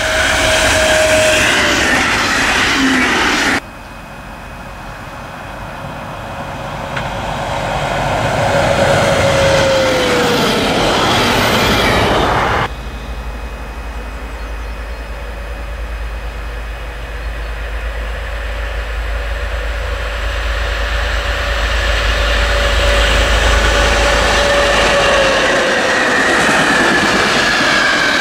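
Trains passing close by on a main line, in three cuts. First an IC3 diesel multiple unit goes by, then a second train, each with a tone that falls in pitch as it passes. Last, the MX diesel locomotive with its measurement train approaches with a deep engine rumble and rolls past, wheels running on the rails.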